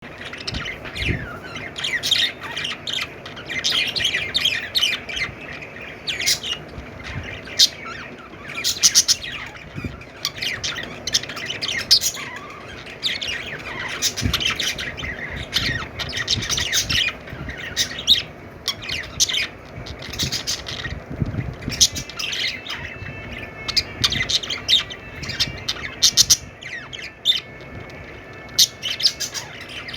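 A flock of budgerigars chattering, with many overlapping chirps and sharp squawks throughout.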